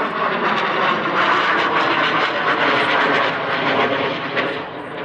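Jet engine noise from display jets flying past overhead: a loud, even roar that swells in just before, holds, and eases slightly near the end.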